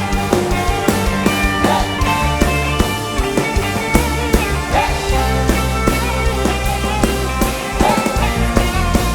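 Band music: a drum kit keeping a steady beat under bass and guitar.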